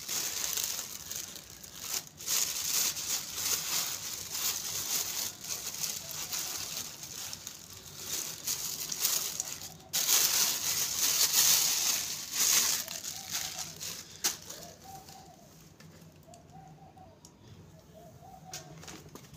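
Thin plastic bag crinkling and rustling as it is handled and pulled out from among eggs on straw in a plastic basket, in irregular spells for about the first fourteen seconds. After that it dies down, and a short call repeats about once a second.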